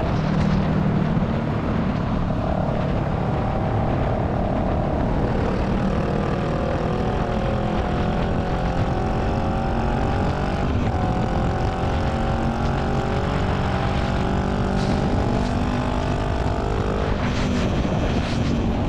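2018 Honda Rebel 500's parallel-twin engine, fitted with a Radiant Cycles Shorty GP slip-on exhaust, running steadily at highway cruising speed, mixed with wind and road noise. The engine note shifts in pitch a little a few times.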